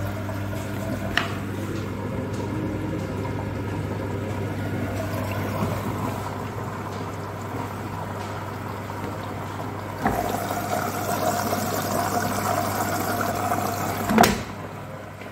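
IFB Executive Plus 8.5 kg front-loading washing machine running a wash: a steady motor hum with water sloshing in the turning drum, and a louder rush of water starting about ten seconds in. Near the end the plastic detergent drawer is pulled with one sharp clack.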